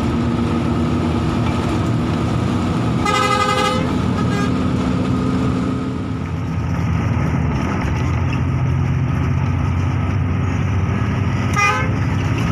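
Harapan Jaya intercity bus's diesel engine running hard at full throttle, heard from inside the cab, easing briefly about six seconds in before pulling again. The bus horn gives a blast of under a second about three seconds in and a short toot near the end.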